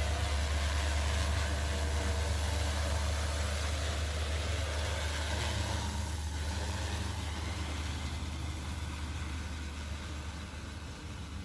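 Agricultural crop-spraying drone's rotors giving a steady low hum with a hiss of rushing air, gradually fading.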